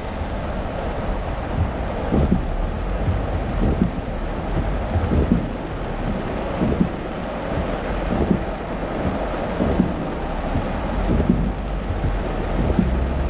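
Heavy rain pouring on a moving car, heard from inside the cabin, with a short sweeping sound repeating about every second and a half.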